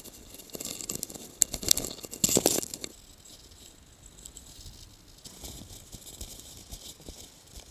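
Rattling and crackling from a handlebar-mounted camera on a moving bicycle, with a cluster of sharp clatters in the first three seconds and softer riding noise after.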